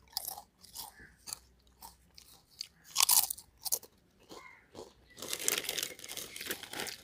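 Crisp, irregular crunches of Uncle Chipps masala potato chips being chewed, loudest about three seconds in. From about five seconds in, the plastic chip packet crinkles continuously as it is handled.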